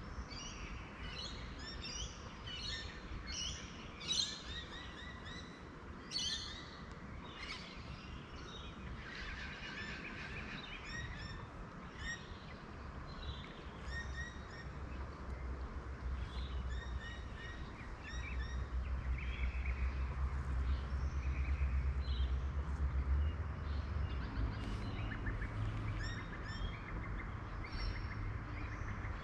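Birds chirping and calling over and over in short, high notes, over a low rumble that grows louder about two-thirds of the way through.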